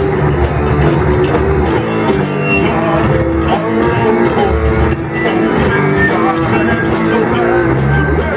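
Rock band playing live: electric guitars and a Pearl drum kit, loud and continuous.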